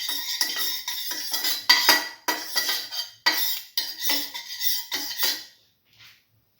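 A metal utensil scraping and clinking against a frying pan while spreading oil over it, in a quick run of strokes that stops about five and a half seconds in.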